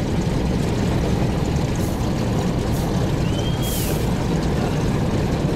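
Junkers Ju 52's three radial engines running at low power as it taxis on the ground, heard as a steady, heavy rumble inside the cabin. A faint short whine rises and falls about three and a half seconds in.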